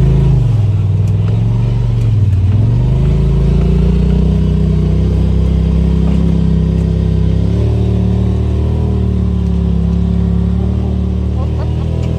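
Side-by-side UTV engine running as it drives a trail. Its pitch dips twice in the first couple of seconds, then climbs and holds fairly steady.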